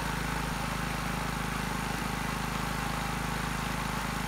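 Predator 212cc single-cylinder four-stroke engine running steadily on an alternator test stand, with no electrical load on it yet.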